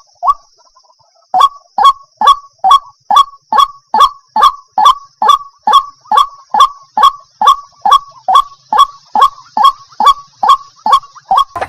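Water hen calling: a steady run of short notes, each falling in pitch, repeated about twice a second after a short pause near the start.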